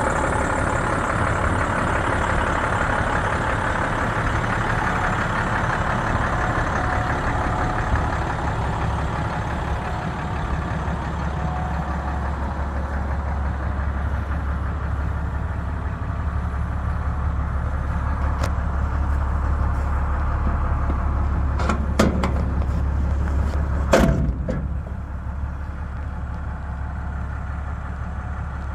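International rescue truck's diesel engine idling with a steady low hum. A couple of sharp knocks sound near the end.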